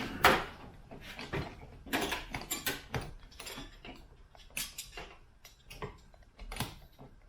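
Metal hand tools and bolt hardware clinking and tapping as a light bracket is fastened: irregular clicks and knocks, the loudest just after the start, growing sparser toward the end.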